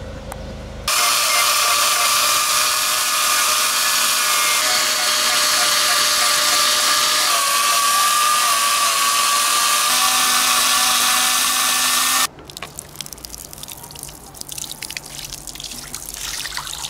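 Handheld power carving tool with a spinning disc grinding into black locust wood: a loud, steady high whine over a rushing grind that starts and stops abruptly. After it cuts off, about twelve seconds in, water splashes and trickles as it is poured over the carved wood.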